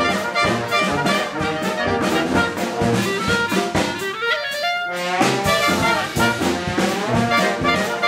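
Small Dixieland band of trumpet, clarinet and drum kit playing an up-tempo tune over a steady drum beat. About four seconds in the band drops out for a brief break in which one instrument plays a rising run, and the full band comes back in about a second later.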